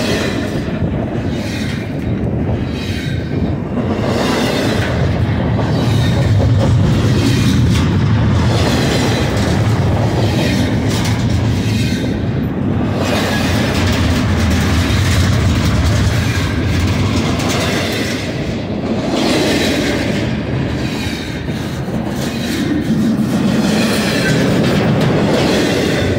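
Double-stack intermodal well cars of a BNSF freight train rolling past close by: a loud, steady rumble of steel wheels on the rails.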